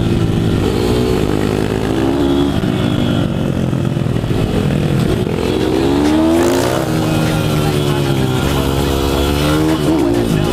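150 cc pit bike's single-cylinder four-stroke engine under way at close range, its pitch rising and falling again and again as it accelerates and backs off. A second pit bike's engine runs close by, its pitch crossing the first.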